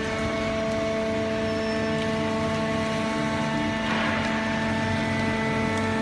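Horizontal hydraulic baler's power unit running, a steady hum-whine of several even tones, with a brief hiss about four seconds in.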